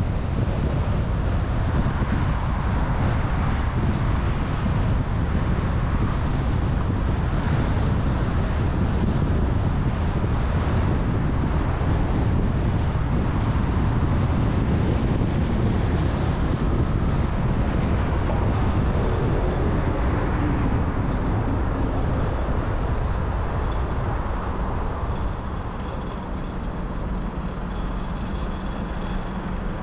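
Car being driven: steady engine and tyre-on-road noise. Near the end it gets a little quieter and a steady low hum comes through as the car slows.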